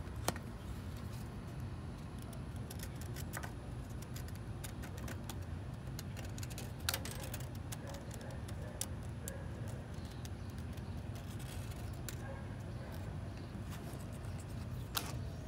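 Scattered light clicks and taps from a pen and cardboard being handled against the rusty sheet-metal trunk gutter while the hole is traced, over a steady low background rumble.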